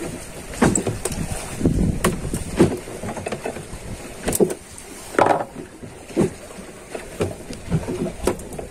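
Water slapping and knocking against a small boat's hull in irregular bursts, with scattered sharp clicks from fishing pliers and line being handled.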